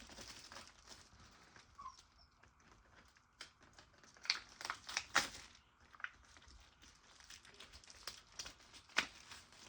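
Plastic shrink wrap being peeled and crinkled off a VHS tape box: faint, irregular crackles and clicks, with a few sharper snaps about four, five and nine seconds in.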